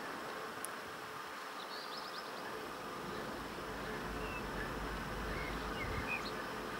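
BR 232 'Ludmilla' diesel locomotive's Kolomna V16 two-stroke diesel running just after start-up, a steady drone heard from across the yard, with a deeper rumble growing in about halfway through. A few short bird chirps are heard over it.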